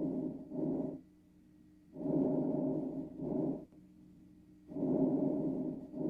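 Auscultated lung breath sounds heard through a stethoscope recording: a hushing breath noise in repeating cycles, each a longer sound followed closely by a shorter one, about one cycle every two and a half to three seconds. A faint steady hum sits between the breaths.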